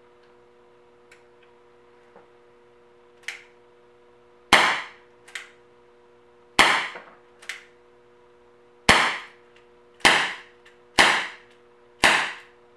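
Crosman SNR357 CO2 air revolver fired six times, sharp shots spaced about one to two seconds apart, the last four coming faster. Lighter clicks fall before and between the first few shots.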